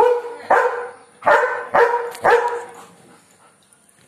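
German Shepherd's aggressive barking at birds: five loud barks in quick succession, stopping after about two and a half seconds.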